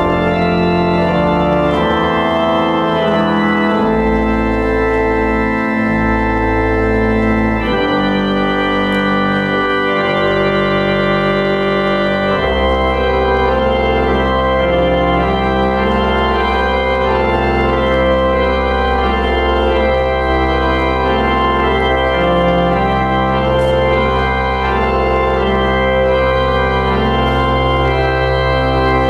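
Church organ playing slow, sustained chords. A low bass note is held steadily under the changing harmony from about twelve seconds in.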